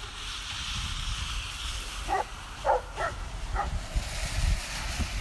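A dog gives four short barks in quick succession about two seconds in, over a steady hiss and low rumble.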